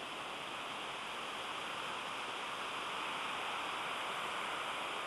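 Steady rush of water falling down the walls of the National September 11 Memorial's reflecting pool, growing a little louder about three seconds in.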